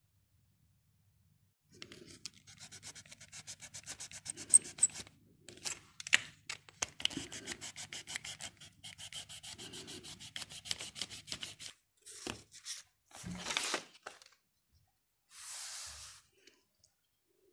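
Snap-off utility knife cutting a pleated paper blind, a rapid, even ticking as the blade crosses the folds, followed near the end by a few short scraping and rustling noises from handling the paper.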